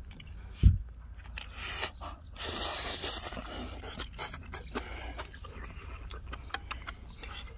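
Close-up eating sounds: a man chewing a mouthful of kimchi fried rice, with many small wet clicks and a single low thump about a second in. Near the end the metal spoon scrapes the frying pan.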